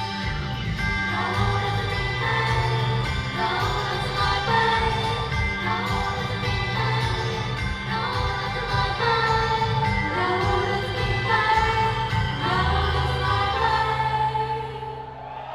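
Girl idol group singing a pop song in unison over a backing track through a sound system, with the music fading down near the end.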